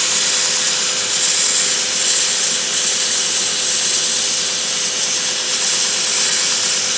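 Belt grinder running with a small piece held against the slack part of its used 60-grit belt, grinding the corners off a tiny hammer handle: a steady abrasive hiss over a constant motor hum.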